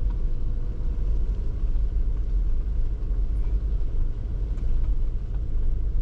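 A car driving along a dirt road, heard from inside the cabin: a steady low rumble of engine and tyres.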